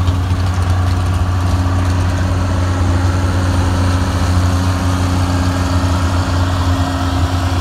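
An engine idling steadily: an even, low hum with no revving.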